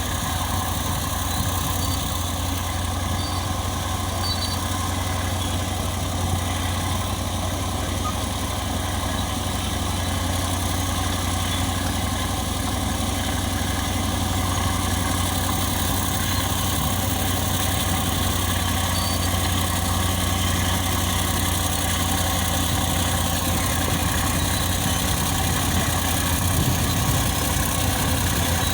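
Caterpillar D8 bulldozer's diesel engine running at a steady, even pitch.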